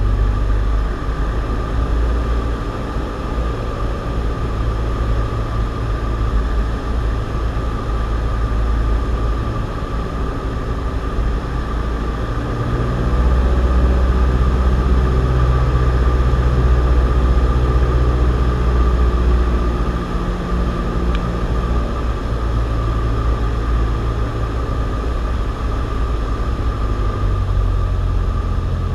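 Cessna 172's piston engine and propeller droning steadily on approach to land. It grows louder for several seconds about halfway through, then eases back.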